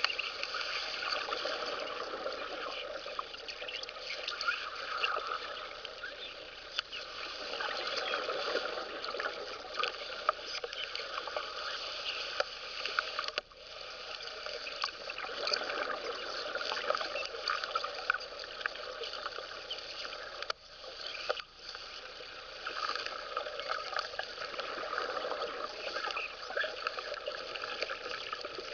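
Underwater cutting torch burning through steel, heard through the water: a continuous crackling hiss of the burning rod with rushing gas and bubbles. It cuts out briefly about halfway through and twice more a few seconds later.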